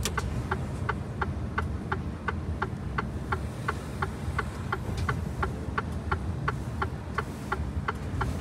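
Truck cab turn-signal indicator ticking steadily, about three ticks a second, over the low drone of the truck's diesel engine running.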